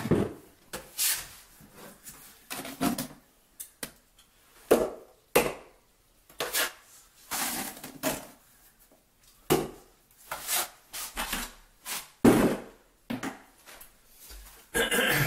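Thinset mortar being scooped from a plastic bucket and dropped and spread onto a plywood subfloor: a series of irregular scrapes and slaps, about one every half second to a second, some louder than others.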